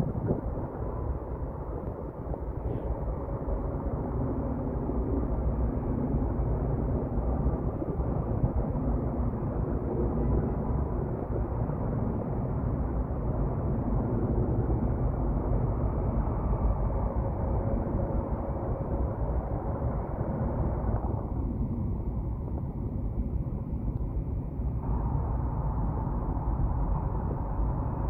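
Steady low rumble of road traffic, with no single vehicle standing out.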